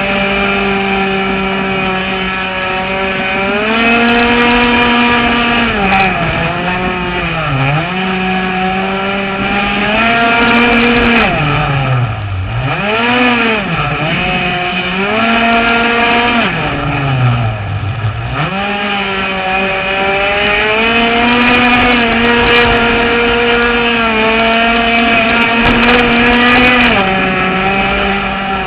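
A Shockwave 55 RC boat's engine running at a steady high pitch. Three times the throttle eases off, the pitch falls sharply, then climbs back up again.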